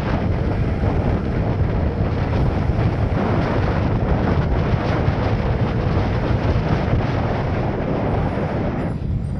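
Steady rush of wind over the microphone of a moving motorcycle, mixed with engine and road noise; it eases slightly near the end.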